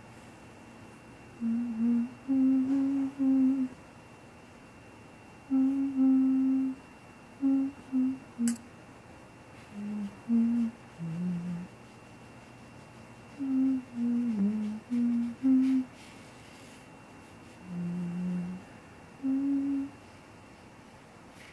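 A person humming a slow tune with the mouth closed, short low notes in several phrases separated by pauses of a second or two.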